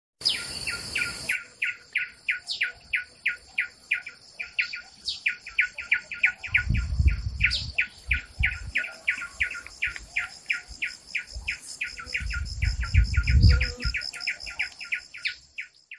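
Birdlike chirping: a rapid run of short, falling chirps, about three or four a second, with two low rumbles, one around the middle and one near the end.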